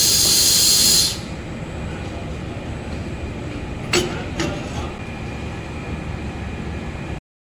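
Automatic laser welding machine: a loud steady hiss stops about a second in, leaving a lower mechanical running noise with two sharp clicks about four seconds in. The sound cuts off abruptly near the end.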